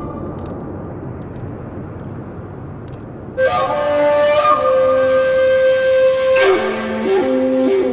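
Instrumental background music: a soft hiss, then about three and a half seconds in a melody of long held notes comes in and moves step by step in pitch.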